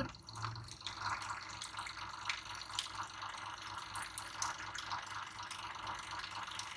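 DiluCult gravimetric diluter dispensing buffer into a sample bag of tomato slices: a faint, steady trickle of liquid with a low hum beneath it and a few small ticks.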